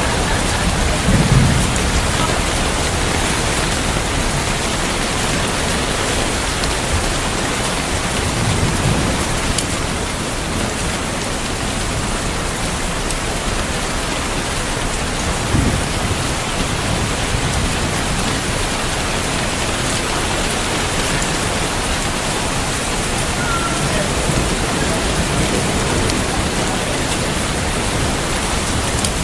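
Heavy rain falling steadily, with low rumbles of thunder about a second in, around nine seconds, more sharply near the middle, and again near the end.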